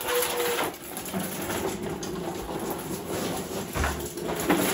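Plastic toy dump truck's wheels rattling and rumbling steadily as it is pushed over a concrete floor.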